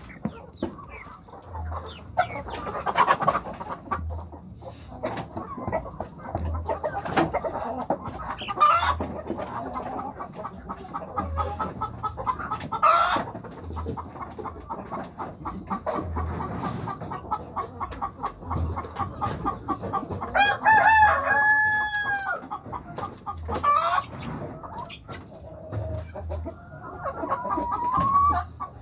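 Chickens clucking, with a rooster crowing once about two-thirds of the way through.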